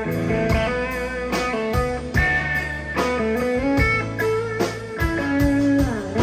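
Live country band playing an instrumental passage: a Telecaster-style electric guitar plays a lead line with bending notes over a steady drum beat and bass.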